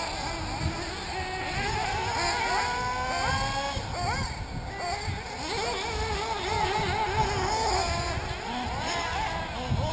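Several 1/8-scale nitro RC buggies' small two-stroke glow engines revving around the track. Their high whines rise in pitch again and again and overlap one another.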